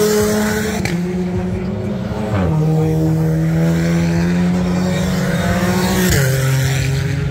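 Race car engine running hard at high revs, its note holding steady and then stepping down sharply twice, about two and a half seconds in and again about six seconds in.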